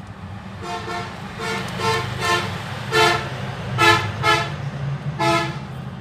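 A vehicle horn honking in a series of short toots, about eight in all, over a steady low hum.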